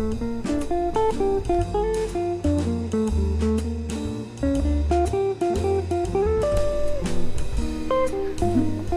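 Background music led by plucked acoustic guitar over a pulsing bass line.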